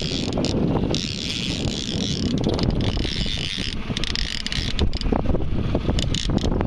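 Wind buffeting the microphone over the low drone of a boat's outboard motor, with a higher hiss that comes and goes several times.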